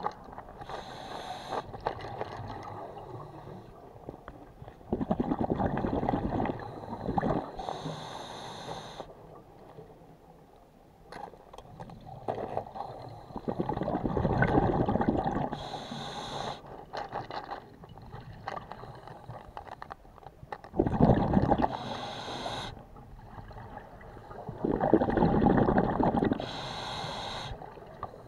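Scuba diver breathing through a regulator underwater. Each breath is a short hissing inhale followed by a longer, louder rush of exhaled bubbles, about every six to seven seconds.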